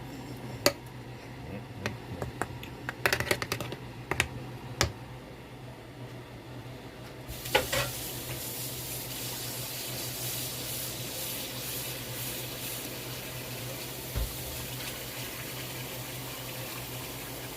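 A few scattered light clicks and knocks, then a kitchen tap turned on about seven seconds in and left running steadily into the sink.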